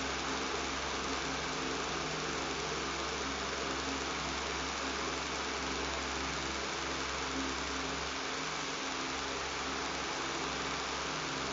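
Electric fan running steadily with a buzz: an even airy rush with a low steady hum under it.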